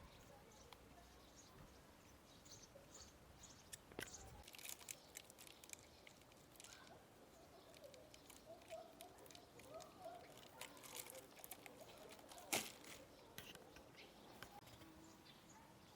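Quiet background with scattered faint clicks and ticks, and one sharper click about three-quarters of the way through.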